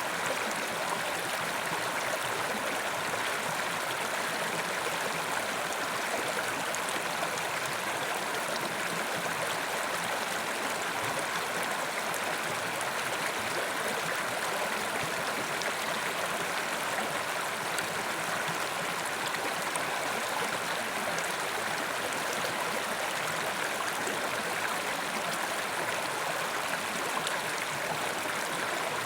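Mountain river rushing steadily over rocks, an even, unbroken sound of flowing water.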